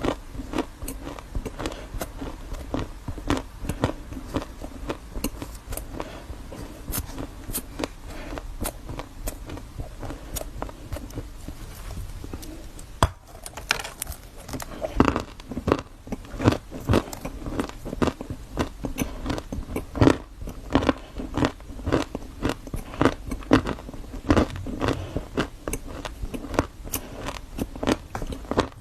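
A person biting and chewing crunchy food close to the microphone: a run of crisp crunches with a brief pause about halfway, after which the crunching is louder and more frequent.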